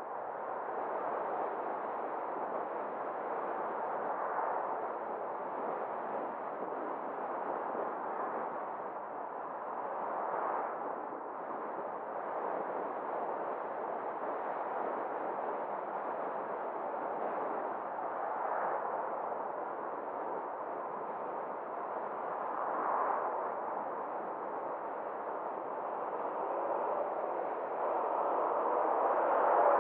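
Steady road and wind noise from a car driving along a street, swelling briefly a few times as it goes.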